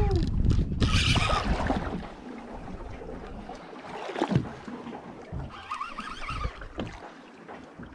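Wind buffeting the microphone and water noise on a small fishing boat at sea, heaviest in the first two seconds, then quieter with a few scattered knocks.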